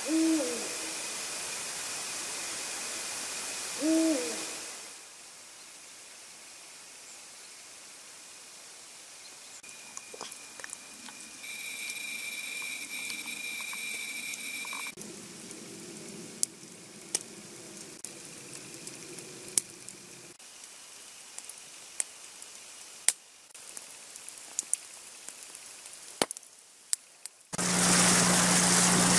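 Two short hoots, each falling in pitch, about four seconds apart: an owl calling at night. Near the end a boat's outboard motor comes in loud and steady as the boat runs through the water.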